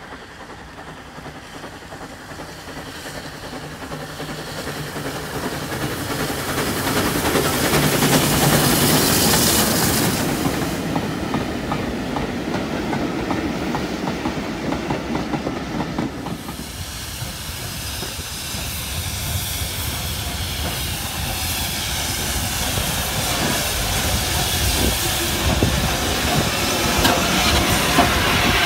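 Steam locomotive hauling a passenger train approaches and passes, its exhaust and steam hiss growing louder and peaking as the engine goes by. The carriages follow, their wheels clicking over the rail joints as they roll past.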